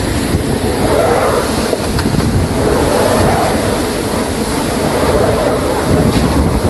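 Rough water washing and crashing in strong wind, with wind rumbling on the microphone.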